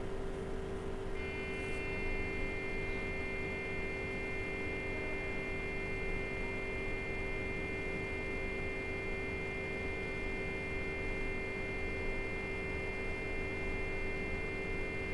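Siemens CT scanner running a helical scan: a steady hum with one strong low tone, joined about a second in by several steady high whining tones that hold for the whole X-ray exposure of about 15 seconds.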